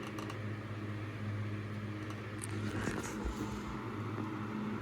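Vintage GE PG10 10-inch oscillating fan running, its motor humming steadily, with a few faint clicks partway through from a loose part that moves up and down and rattles.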